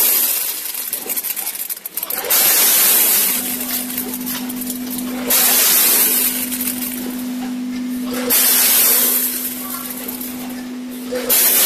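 Multihead combination weigher discharging granular product: about every three seconds a batch of kernels pours out of the stainless-steel weigh hoppers down the chute with a loud rushing hiss, each pour lasting about a second. From about three seconds in, a steady machine hum runs underneath.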